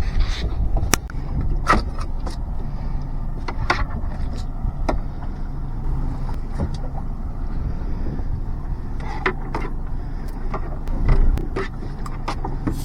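Steady low rumble of a fishing boat's engine running, with scattered sharp knocks and clicks of gear being handled on deck.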